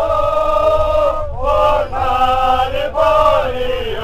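Singing in long held notes, in three phrases each lasting a second or so with short breaks between, over a steady low rumble.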